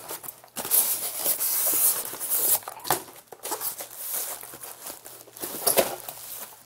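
Close rustling and crinkling handling noise with several sharp knocks and clicks, with a faint low hum underneath.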